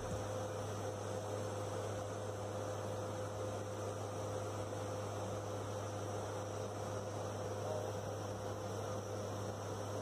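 Steady low drone of a turboprop aircraft's engines and propellers heard from inside the cabin, with a thin higher tone and a hiss over it.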